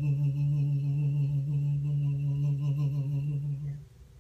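A solo male voice, unaccompanied, holds the final long note of a gospel song on one steady pitch, then stops a little before four seconds in.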